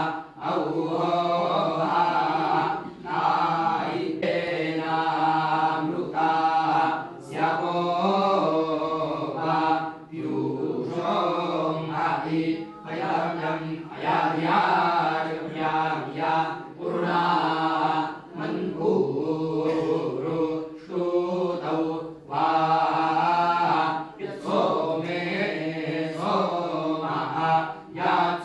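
Several men chanting a Hindu devotional scripture recitation (parayana) to a sing-song melody, in phrases broken by short breath pauses every few seconds, over a steady low drone.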